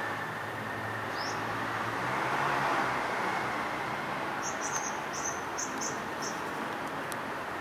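Steady background traffic hum with a low engine drone, a little louder about a third of the way in. Faint high bird chirps over it: one short call early, then a quick run of about six chirps in the second half.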